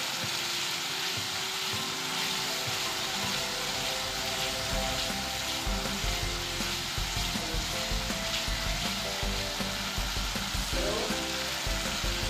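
Masala paste sizzling in a hot kadai while a wooden spatula stirs and scrapes through it. Irregular knocks of the spatula against the pan join in from about halfway through.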